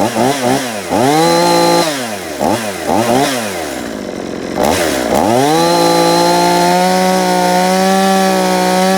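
EFCO two-stroke chainsaw running: the throttle is blipped several times in quick revs over the first few seconds, the engine drops briefly to idle around four seconds, then it is revved up and held at high throttle with a good rumble to it.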